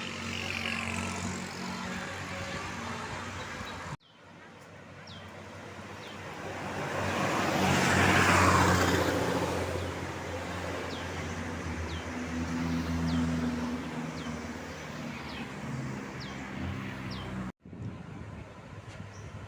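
Roadside traffic: a bus passes close by, its engine and tyre noise swelling to a peak and then fading over several seconds, with engines still running past afterwards. The sound cuts off abruptly twice.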